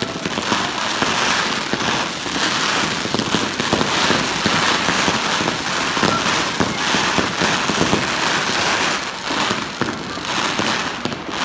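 Aerial fireworks going off continuously: a dense, unbroken crackle of many small bursts, mixed with thuds of shells.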